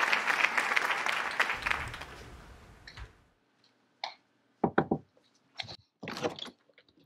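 Audience applause dying away over about three seconds, then quiet broken by a few short, isolated sounds.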